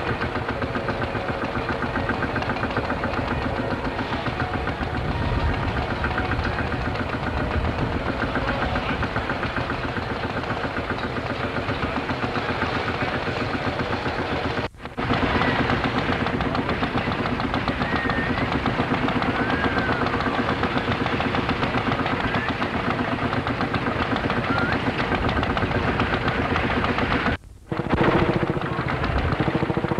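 Vintage tractor engines running with a rapid, steady knocking beat. The sound cuts out briefly twice, about halfway through and again near the end.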